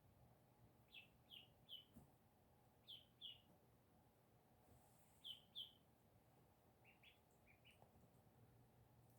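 Jumbo White Pekin ducklings peeping: faint, short, high chirps in little runs of two or three, with a few softer peeps near the end.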